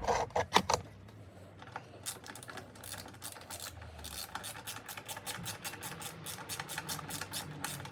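Socket ratchet clicking in quick, fairly even runs of several clicks a second as the rack's mounting bolts are wound in with a 12mm socket, after a few handling knocks in the first second.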